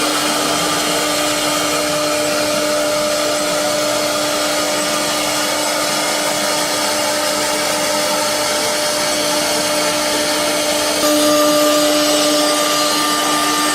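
CNC woodworking router with automatic loading and unloading running: a loud, steady machine whirr with a constant whine, which steps up slightly in pitch and loudness about 11 seconds in.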